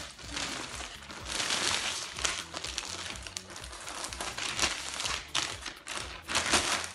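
Plastic packaging crinkling and rustling unevenly as a plastic-wrapped package is pulled out of a plastic mailer bag.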